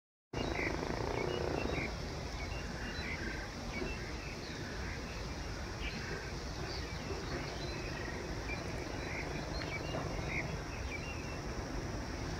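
Outdoor field ambience that cuts in abruptly just after the start: a steady high insect-like hum over a low rumble, with scattered short chirps of small birds.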